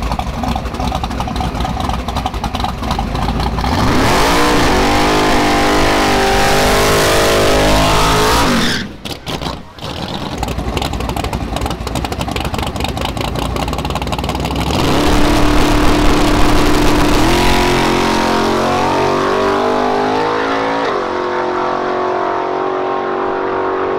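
Fox-body Ford Mustang drag car's engine revving and then pulling hard down the drag strip on a pass on motor, without nitrous. The engine note climbs in long rising sweeps, drops out briefly about nine seconds in, then climbs again.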